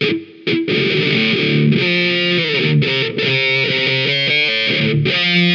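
Background rock music with guitar, coming in fully under a second in after a brief quieter opening.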